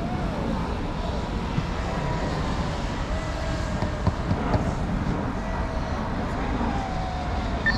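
Fast electric radio-controlled racing boats running on the water, a steady motor whine over a low rumble.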